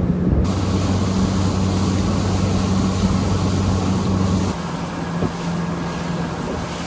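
Boat outboard motor running steadily underway, under a loud rush of wind and water noise. About four and a half seconds in the engine note drops a little.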